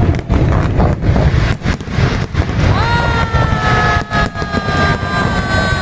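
Fireworks display: a rapid stream of bangs and crackles over a dense low rumble. About three seconds in, a long pitched tone rises sharply, then holds and sinks slowly.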